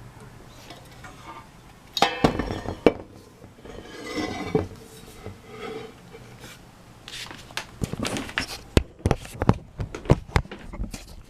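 Irregular metallic clinks, knocks and clatter, as of hard objects being handled. A burst comes about two seconds in, then scattered knocks, then a quick run of sharp clicks near the end.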